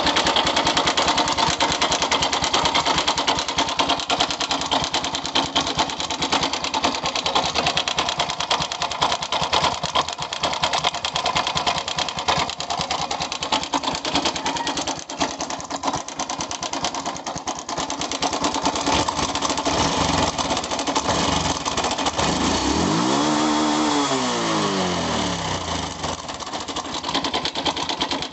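Honda Wave 110i's single-cylinder four-stroke engine running with a busy, rattly ticking texture, then revved up and back down once near the end. The owner says it sounds like it is struggling hard, an abnormal noise that comes and goes.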